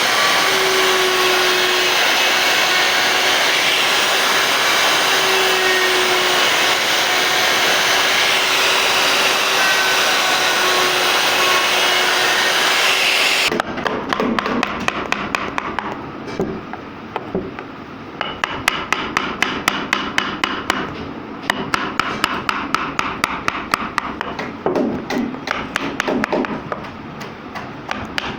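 Wood router running steadily while cutting, a loud even whine that stops abruptly about halfway through. After that comes a quick run of sharp, regular taps, several a second, on wood.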